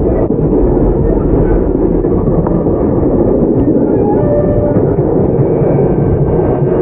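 Onboard running sound of a Tokyu 9020-series electric commuter train with a Mitsubishi VVVF inverter drive, under way: a steady rumble of wheels on rail and traction motors, with a brief tone about four seconds in.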